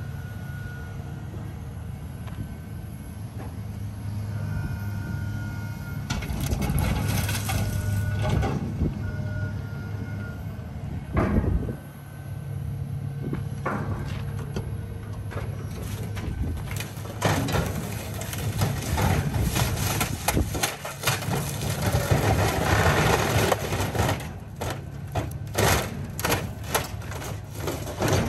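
Car crusher at work: its engine runs steadily while a car body is crushed, with irregular crunching and cracking of metal from about six seconds in, a sharp bang near the middle, and denser cracking and crunching in the last third.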